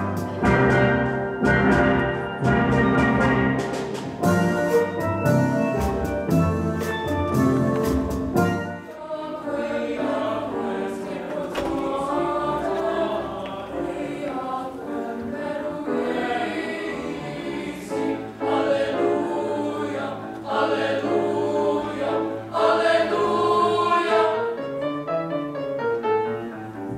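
A steel pan band with drum kit playing a fast, rhythmic tune until it cuts off about nine seconds in. After that a boys' choir sings in harmony.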